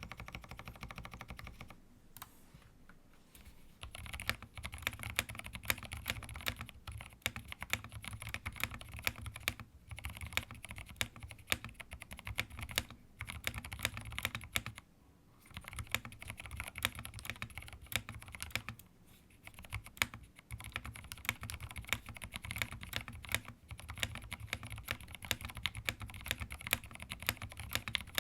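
Fast typing on a 65% mechanical keyboard with a plastic case, semi-silent Franken Silent switches and KKB keycaps: a dense run of soft key clicks, pausing briefly about 2 seconds in, around 15 seconds in and around 19 seconds in.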